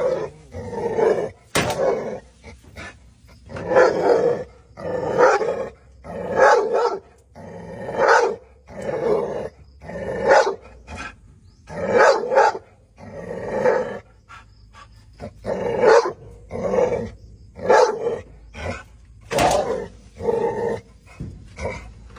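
Pit bull barking over and over, about one bark a second, at a big lizard hidden in the bamboo.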